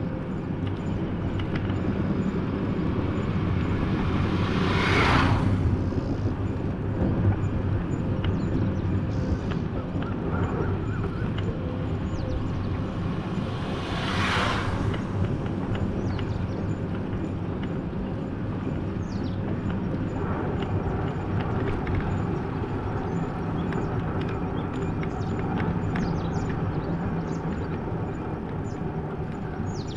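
Steady engine and road noise from a moving vehicle, with two brief, loud rushing hisses about five and fourteen seconds in and scattered light clicks later on.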